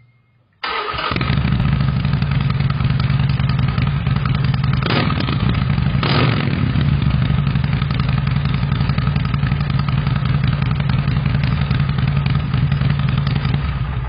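Harley-Davidson V-twin motorcycle engine starting abruptly and running steadily and loudly, with two brief surges about a second apart midway, then fading out near the end.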